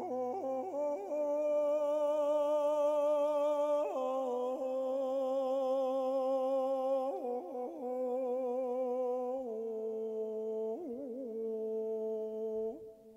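Male voice singing long held notes with a wavering vibrato and quick ornamental turns, with no guitar strumming. The pitch steps down about two-thirds of the way through, and the voice stops shortly before the end.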